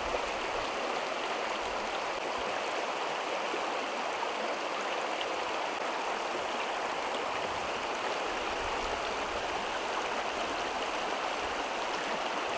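Shallow mountain creek rushing steadily over a rocky riffle.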